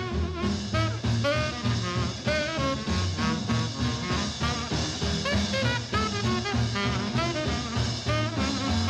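Swing jazz music with a steady beat.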